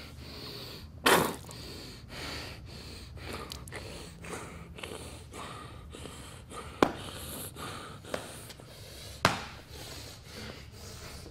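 A woman's heavy, ragged breathing and gasps as she struggles on the floor, hurt and bleeding. Three sharp, louder sounds break in: one about a second in, and two more in the second half.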